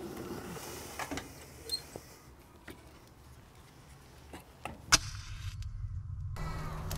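Split firewood pieces knocking and clattering as they are handled at the furnace of a wood-fired generator: scattered sharp knocks, the loudest about five seconds in. A steady low hum follows near the end.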